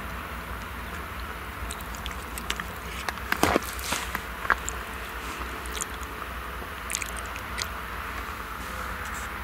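Steyr 9094 tractor working steadily under load while pulling a plough, a low rumble heard from a distance. A cluster of close, sharp crackling and crunching clicks comes about three and a half seconds in, the loudest sound in the stretch, with a few more scattered clicks later.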